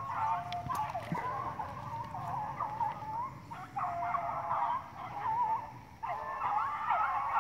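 A pack of beagles baying together in overlapping calls while running a rabbit on its scent, with short lulls about halfway through and again near the end.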